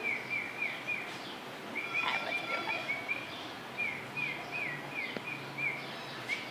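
Canary singing: a string of short downward-sliding chirps, about three or four a second, in phrases broken by brief pauses.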